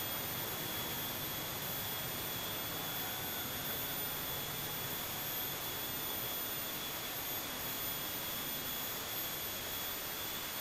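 Steady outdoor background hiss with a thin, steady high whine over it; no train or other distinct event is heard.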